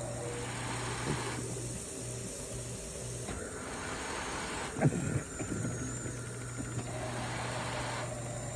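Philips CoughAssist T70 cough-assist machine cycling, air hissing through the mask in alternating stronger and weaker spells of a second or two, over a steady low hum. A short rough burst of noise comes about five seconds in.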